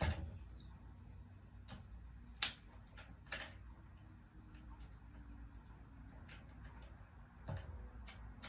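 A few scattered light clicks and knocks from parts of an electric scooter being handled during assembly, the clearest two about two and a half and three and a half seconds in, over a faint low hum.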